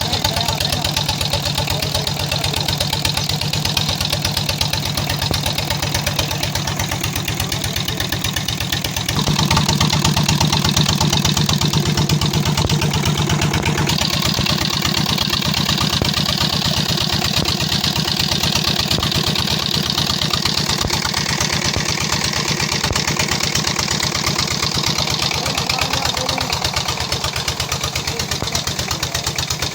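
Repaired 16 HP Chief single-cylinder diesel engine running, with a steady, even beat of firing knocks. It grows louder and deeper about a third of the way in.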